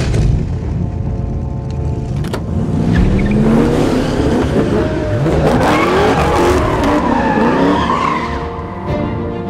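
Classic Ford Mustang doing a burnout: the engine runs under a low rumble, and from about three seconds in the rear tyres squeal, with pitches sliding up and down, easing off near the end.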